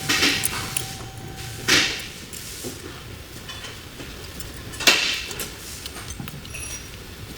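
Workshop handling noises: three short, sharp knocks or scrapes, the loudest about five seconds in, with a few faint clicks between, as tools and brake parts are handled.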